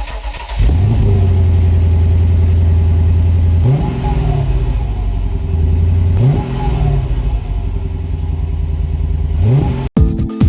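Car engine running steadily, then revved up and let back down three times, about two and a half seconds apart. It cuts off abruptly near the end.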